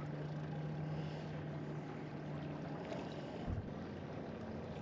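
Wind and water ambience over open water, with a steady low hum that fades out about three seconds in and a soft low bump shortly after.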